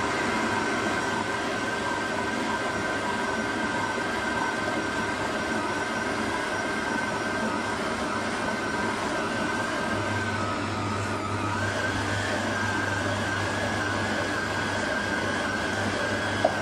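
Stand mixer's motor running steadily with a held whine as its dough hook kneads bread dough in a steel bowl. The whine dips briefly a little past ten seconds in and climbs back.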